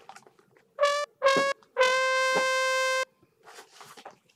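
Comic brass sound-effect sting: three trumpet-like notes, each a little lower than the one before, two short and then one long held note, a 'wah-wah-waaah' failure cue.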